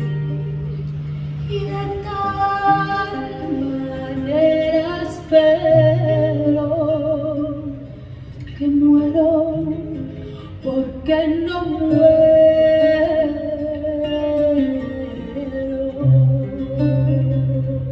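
Live acoustic song in an early-music style: a woman sings a slow melody with vibrato, accompanied by acoustic guitar and violin, over long held low notes.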